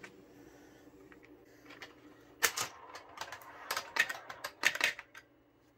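Steel balls on a KiwiCo Eureka tabletop pinball game: a run of sharp clacks and knocks starting about two and a half seconds in, as the balls strike the playfield pieces and drop into the 3D-printed ball catcher.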